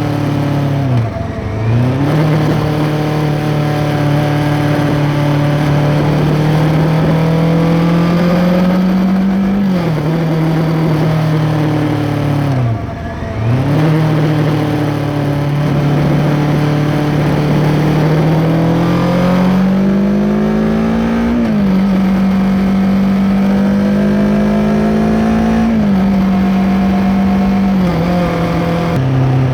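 2023 Kawasaki Ninja 650's parallel-twin engine through an Arrow X-Kone exhaust with its dB killer fitted, heard from under the seat while riding on the throttle. The engine note climbs slowly, dips sharply and picks up again about a second in and again around a third of the way through, then rises and drops in pitch in steps over the last third.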